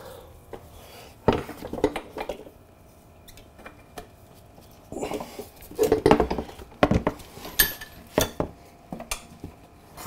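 Loose metal hardware and tools clinking, clattering and knocking in several bunches during motorcycle rear-wheel reassembly, with a couple of short bright metallic rings.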